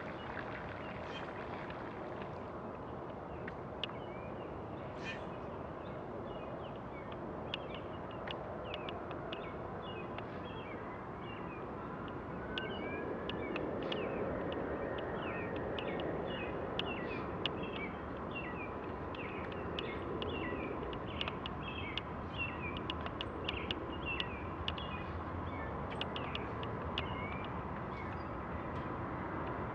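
Steady rushing wind and tyre noise of a bicycle riding along a paved road, swelling louder about twelve seconds in. Many short, high bird chirps sound over it from about a third of the way in, growing busier toward the end.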